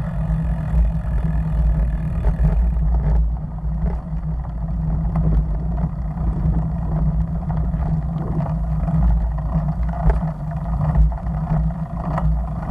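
Steady low rumble of wind buffeting a Cycliq bike camera's microphone while riding a bicycle, with road noise and a few sharp clicks and rattles from the bike.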